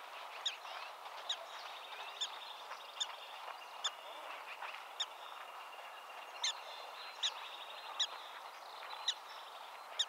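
Black-tailed prairie dog barking, a string of about eleven short, sharp, high chirps roughly one a second with a brief pause midway: the repeated bark of a prairie dog alarm call.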